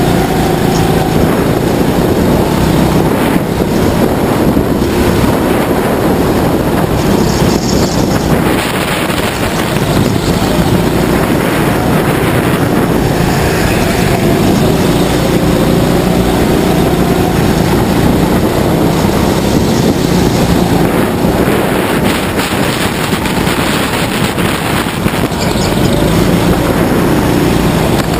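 Indoor rental go-kart's engine running at full throttle, heard from the kart itself, its note wavering slightly as the kart goes through the corners, with wind noise on the onboard microphone.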